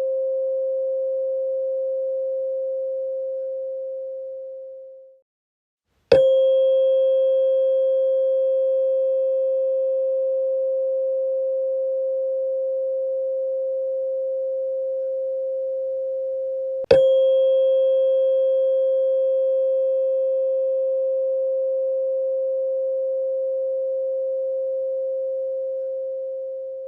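Tuning fork struck and ringing with a pure, steady tone that slowly fades. The first ring dies away about five seconds in, the fork is struck again about a second later, and again about eleven seconds after that while still sounding. Each strike gives a sharp metallic ping whose higher overtones fade within a few seconds, leaving the single tone.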